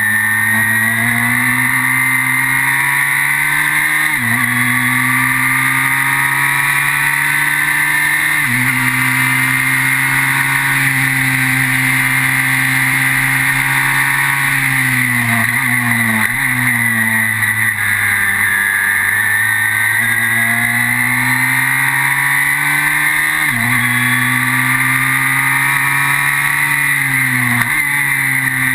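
Onboard sound of a Formula BMW single-seater's engine, a four-cylinder BMW motorcycle unit, driven hard around a track. The pitch climbs through the gears with sudden steps at each gear change, about 4 and 8 seconds in and twice near the end. In the middle the pitch sinks through a slower stretch before climbing again.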